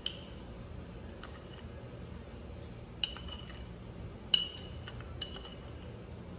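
Steel spoon clinking against a glass bowl and a steel mixer-grinder jar while sugar is spooned in: several sharp clinks, each with a short ring.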